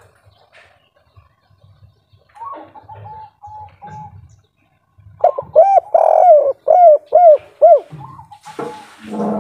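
Spotted dove cooing: a soft run of short, even coos about two seconds in, then a louder series of about six arched coos starting about five seconds in. A brief rustling noise comes near the end.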